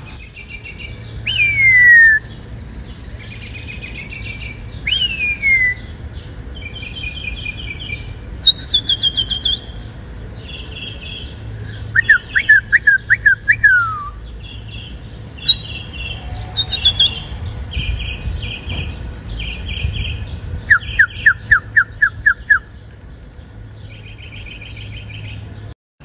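Northern mockingbird singing a string of varied phrases, each repeated several times: down-slurred whistles, short chirps and fast rapid-fire trills. Its song mixes many different sounds, including imitations of whistles.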